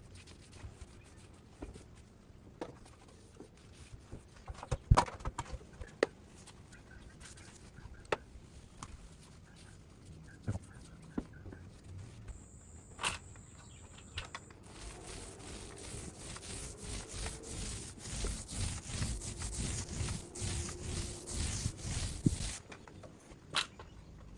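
A tool rubbed back and forth on drywall in quick, even strokes, several a second, for about eight seconds, stopping abruptly near the end. Before it come scattered sharp knocks and clicks, the loudest about a fifth of the way in.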